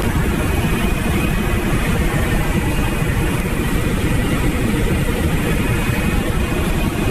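Loud, steady engine and airflow noise inside the cockpit of a small aircraft in flight, heaviest in the low end.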